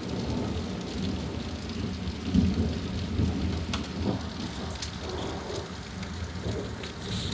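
Steady rain falling, with a low rolling rumble of thunder that swells about two and a half seconds in.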